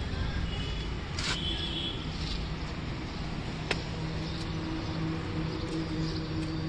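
Steady low vehicle rumble with a faint hum that grows firmer in the second half, and two sharp clicks at about one and four seconds in.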